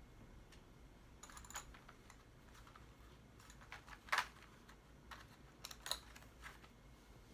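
Light, scattered clicks and knocks of plastic parts being handled during assembly, the loudest a couple of sharp clicks about four seconds in.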